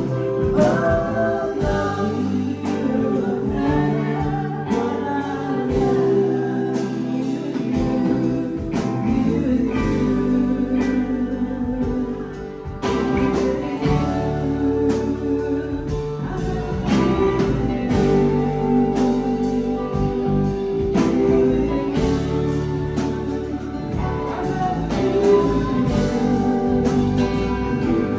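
Live rock band playing a song, with singing over guitar.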